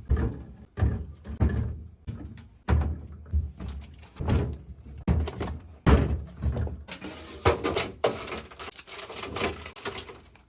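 Food containers and items being handled and set down in a fridge: a run of separate soft thuds and knocks, giving way about seven seconds in to a denser, brighter clatter and rustle.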